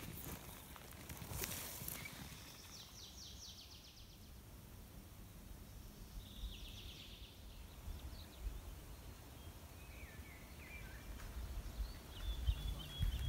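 Faint forest ambience with small birds chirping and a few short, rapid trills. There are a few light clicks near the start, and a low rumble builds near the end.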